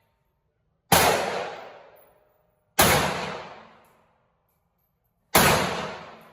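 Three gunshots, well spaced, each a sharp bang that rings out and fades over about a second.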